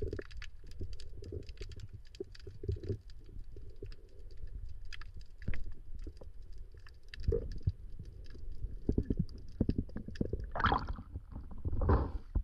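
Underwater sound through a diving camera: a low muffled rumble of moving water with scattered small clicks and crackles. Several louder water surges come near the end.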